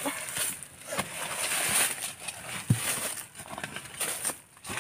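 Digging tool chopping into garden soil to dig up tubers: several irregular dull strikes, with loose dirt scattering between them.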